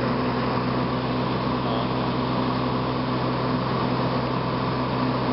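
Light aircraft's piston engine and propeller running with a steady drone, heard from inside the cabin.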